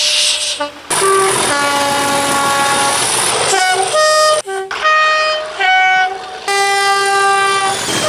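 British Rail Class 37 diesel locomotives sounding their two-tone air horns: a series of loud blasts switching between a high and a low note, some short and some held for a second or two.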